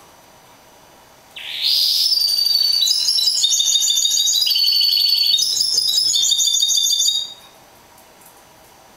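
A caged mule finch (a canary hybrid) singing a fast, high-pitched song of rapid trills and chirps, starting about a second and a half in and breaking off after about six seconds.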